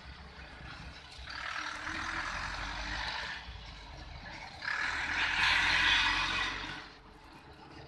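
Loaded Eicher truck driving past: a low engine rumble, with two hissing rushes of about two seconds each.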